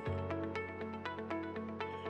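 Background music: a soft, steady instrumental bed with a held low note and light, evenly spaced plucked or tapped notes.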